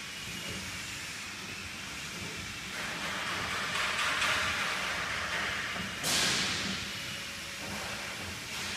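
Fabric inspection machine running, its rollers winding cloth onto a roll with a steady mechanical rumble and hiss. The hiss grows louder about three seconds in, and a sudden louder rush comes about six seconds in and fades over a second.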